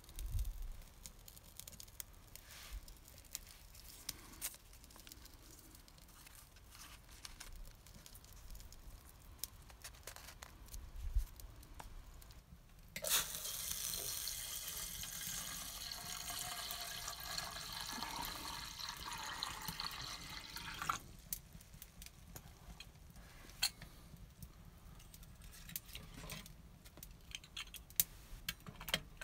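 Water poured into a metal kettle on a woodstove: a steady splashing pour, about eight seconds long, that starts suddenly near the middle and stops abruptly. Before and after it there are only faint scattered clicks.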